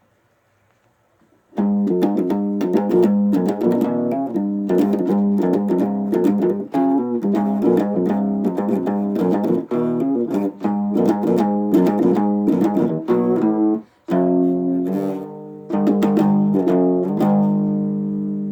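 A guitar being played: quick picked and strummed notes that start about a second and a half in, break off briefly near the end, then resume and finish on a chord left ringing.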